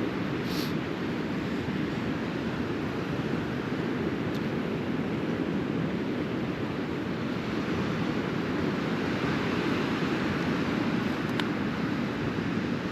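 Sea waves washing up a rocky beach as a steady, even rush, with wind on the microphone.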